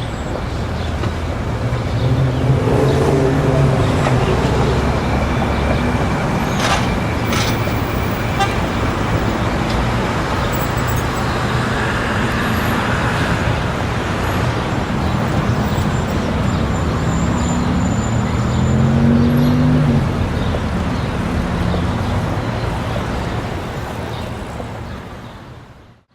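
City street ambience: steady road traffic with a crowd of people on the street, fading out near the end.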